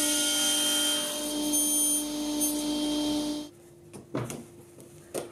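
Table saw running and cutting a plastic HT drainpipe to length, a steady hum with cutting hiss. It stops abruptly about three and a half seconds in, followed by a few light plastic knocks as the pipe and hose are fitted onto a clear plastic dust shoe.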